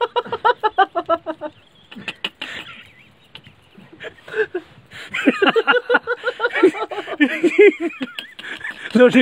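People laughing and shouting with excitement: quick, evenly repeated bursts of laughter at first, then wavering, rising and falling cries from about halfway through.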